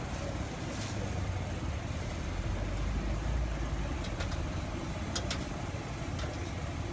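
A steady low engine-like rumble, with a few faint clicks a little past the middle as a knife cuts through a sandwich against the iron griddle.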